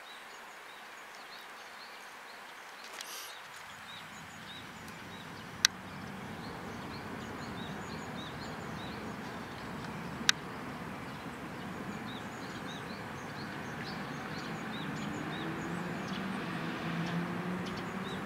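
Outdoor background with small birds chirping over and over, two sharp clicks about six and ten seconds in, and a low hum that builds over the last few seconds.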